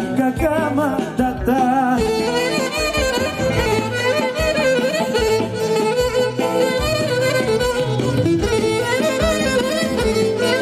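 Live Greek folk dance music, an instrumental passage: a wavering, ornamented lead melody over a steady bass beat.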